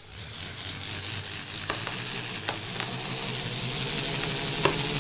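A ball whirling around the inside of an inflated rubber balloon: a steady rushing whir with a low hum. It starts at once, grows louder over the first second, and has a few sharp ticks.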